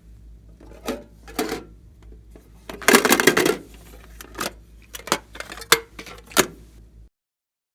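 Close-up handling sounds from slime play: a few sharp clicks, then a dense burst of crackling and popping about three seconds in, then more single clicks spaced roughly half a second apart. The sound cuts out suddenly near the end.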